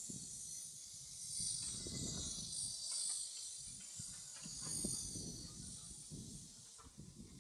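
A steady, high-pitched chorus of insects shrilling outdoors, swelling and easing slightly, over an irregular low rumble.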